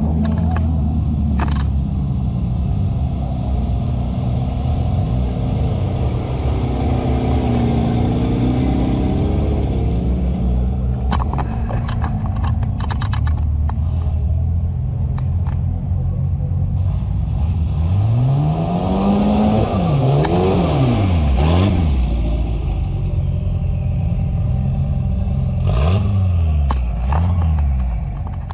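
Off-road 4x4 engine running hard through deep mud, revving up and down several times in quick succession about two-thirds of the way through, with a few sharp knocks along the way.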